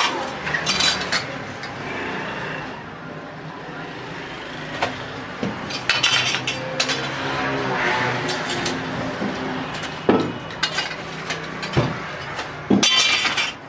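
Clinks and knocks of metal utensils at a tandoor bread counter. Sharp clicks are scattered throughout, with a dense cluster near the end.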